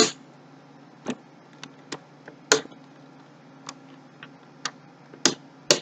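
Sharp plastic clicks and taps, about ten of them at uneven intervals, as the push-pin fasteners of a stock Intel CPU cooler are pressed down into the motherboard's mounting holes. A faint steady hum runs underneath.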